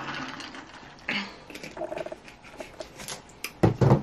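A drink poured from a plastic bottle into a plastic cup of ice, gurgling from the bottle neck with small clicks of ice. A loud low thump comes near the end.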